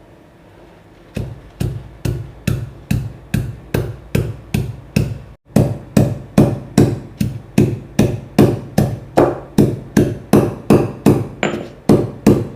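A pestle pounding a piece of fresh ginger and tulsi leaves in a mortar: steady, evenly spaced strikes about two and a half a second, each with a short ringing note, broken briefly about five seconds in.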